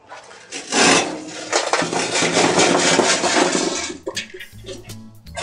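Lit charcoal briquettes poured out of a metal chimney starter onto a steel fire pan: a loud, continuous rattling clatter of coals tumbling and sliding, which dies down about four seconds in.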